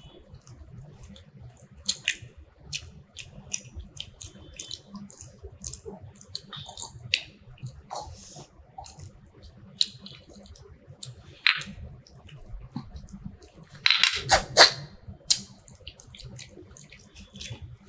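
Close-up eating sounds of fish curry and rice: irregular wet clicks, lip smacks and chewing, with a louder burst of noise about fourteen seconds in.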